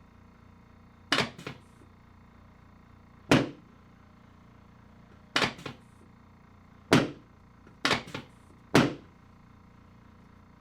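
Chiropractic drop table's pelvic drop section releasing under the adjuster's thrust: six sharp, loud knocks a second or two apart, several followed by a lighter rebound knock.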